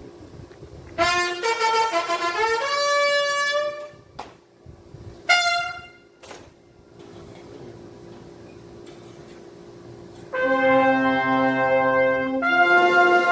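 Military brass ceremonial calls: a quick call of rising stepped notes on bugle or trumpet about a second in, a short call around five seconds, then from about ten seconds several brass instruments holding long chords.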